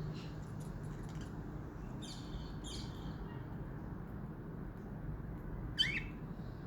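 Budgerigars chirping in short high bursts: a few near the start, two more clusters about two to three seconds in, and one louder rising call near the end, over a steady low background rumble.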